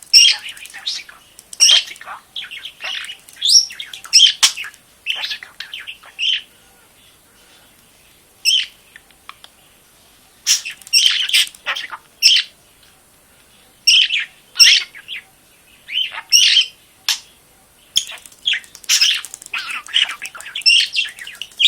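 Budgerigar chirping and chattering in quick, loud bursts of short warbles, breaking off for about four seconds in the middle before starting again.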